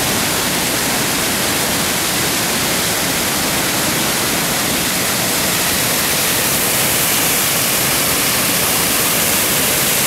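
Düden Waterfall pouring into its pool: a steady, loud rush of falling water.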